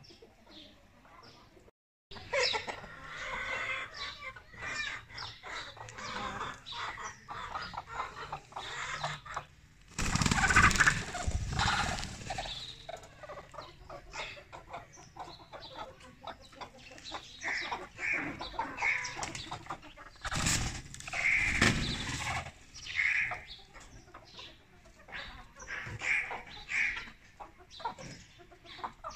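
Domestic chickens clucking on and off, many short repeated calls. Twice, about a third and about two-thirds of the way through, a louder noisy burst lasting a second or two rises over the clucking.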